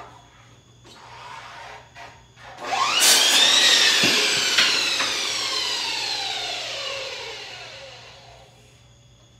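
A few light knocks of wood being handled, then an electric miter saw starts up with a rising whine and briefly cuts a wooden slat. The blade then coasts down to a stop, its whine falling in pitch and fading over about five seconds.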